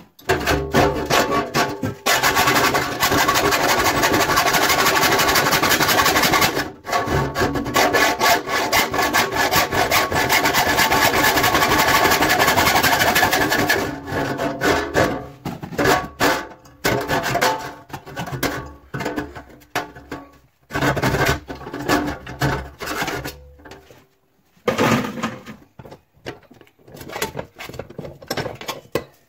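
Hand hacksaw cutting through the thin sheet steel of a clothes dryer door: a fast rasping, with the panel ringing under the blade. Steady sawing for about the first dozen seconds, then shorter, broken strokes with pauses.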